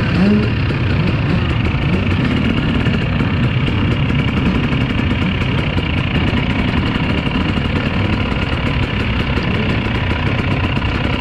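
Several motocross bike engines running together in a steady, dense drone, with one engine revving up briefly just after the start.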